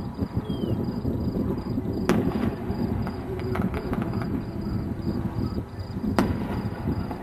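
Distant aerial firework shells bursting: two sharp bangs, about two seconds in and about six seconds in, with a few fainter crackles between them, over a steady low rumble.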